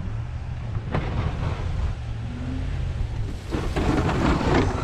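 A vehicle engine rumbling low and steady, with a short click about a second in and a louder rushing noise in the last second and a half.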